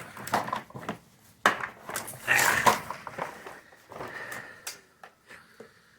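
Irregular clicks, knocks and scraping of a screwdriver working at the plastic housing of a vacuum cleaner, with a louder rough stretch of scraping a couple of seconds in.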